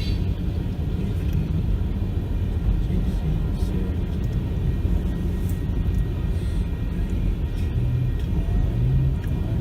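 Freight train rolling past at a railroad crossing, a steady low rumble with faint clacks of the wheels, heard from inside a waiting car.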